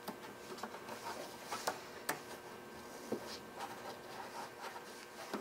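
Faint rustling and scraping of hands working over a Graco Extend2Fit car seat's fabric cover and plastic shell, with several small clicks and taps, as fingers feel for a hook to catch an elastic strap.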